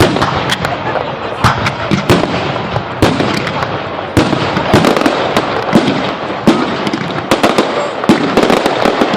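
Fireworks display going off in a dense, uneven barrage of sharp bangs and crackles, several a second, over a continuous crackling haze.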